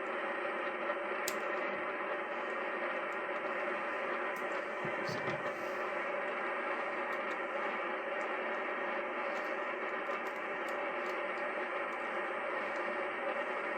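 Yaesu FT-102 ham radio receiver hissing steadily with band noise, squeezed into the narrow audio band of single-sideband reception, with a few faint small clicks now and then.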